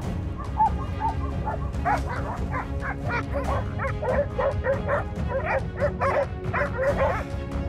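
Hunting dogs barking rapidly at a wild boar they have cornered, a dense run of short yelping barks, several a second, starting about two seconds in, over background music.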